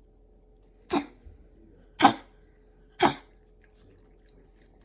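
Pomeranian coughing three times, about a second apart, short sharp coughs from a collapsed trachea.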